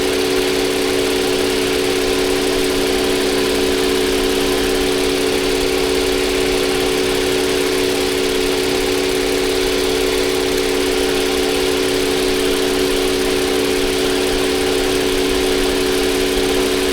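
Toyota Avalon's 3.5-litre V6 idling steadily with a constant hum. The engine has a cylinder 6 misfire traced to a clogged fuel injector.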